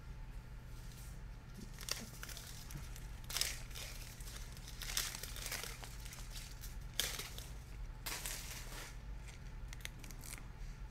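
Foil trading-card pack wrapper being torn open and crinkled, in several short crackly bursts over a faint steady low hum.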